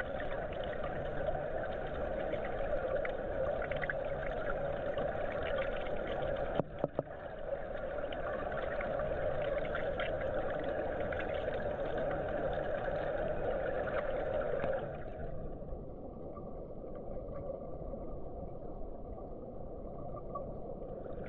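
Steady rushing noise of a swimming pool heard underwater, with a brief break about seven seconds in. From about fifteen seconds on it turns duller and a little quieter.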